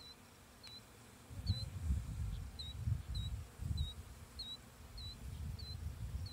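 Honey bees from a swarm buzzing around an open hive box as frames are handled. A low gusty rumble comes and goes from about a second in. A short high chirp repeats about twice a second throughout.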